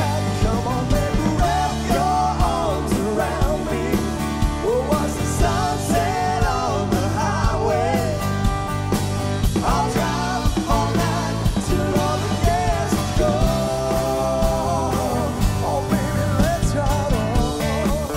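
A live country-rock band playing, with a man singing lead over electric and acoustic guitars and a drum kit keeping a steady beat.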